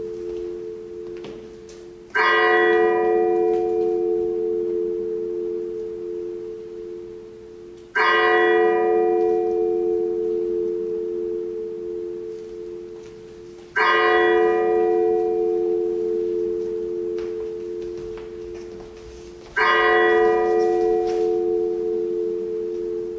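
A bell tolling slowly: four strikes about six seconds apart, each ringing on and fading away before the next.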